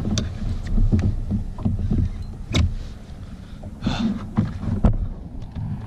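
Irregular knocks and bumps of gear and handling against a fishing kayak over a low rumble, with a short rush of noise about four seconds in, while a hooked redfish is brought alongside.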